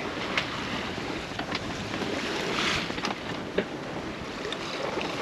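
Wind and water rushing past a sailboat under sail, with wind on the microphone and a few light clicks and knocks from the boat's gear as the mainsail is hauled in before a jibe.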